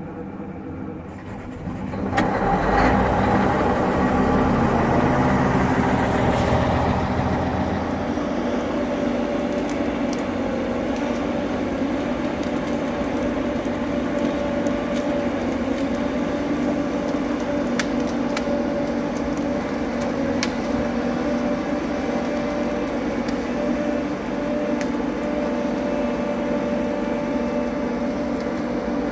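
Diesel engine of an HSM 405H forest harvester running steadily. It comes in about two seconds in, louder for the first several seconds, then settles to an even level, with a few faint knocks.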